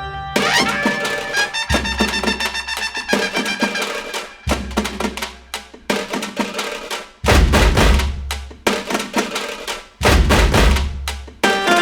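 Background music: an upbeat instrumental track with a steady drum beat and a heavy bass that drops out and comes back every couple of seconds.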